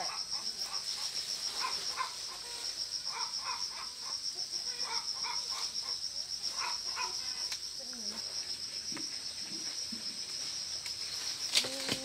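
Insects trilling: a steady, high, fast-pulsing trill, with short lower chirps recurring in clusters every second or two. A single sharp click near the end.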